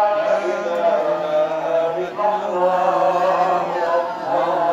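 A group of voices chanting Arabic prayers together in long, drawn-out phrases.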